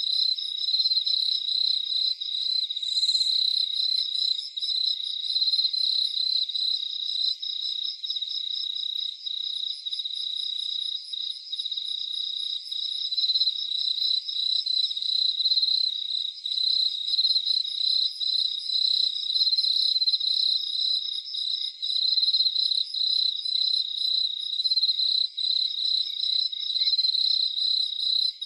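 Crickets chirping at night in a dense, steady chorus: a continuous high-pitched pulsing trill, with fainter, higher chirps layered over it.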